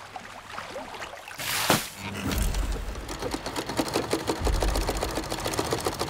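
A short rush of noise about a second and a half in, then a vintage sewing machine running fast, its needle mechanism making a rapid, even rattle, over a low rumble.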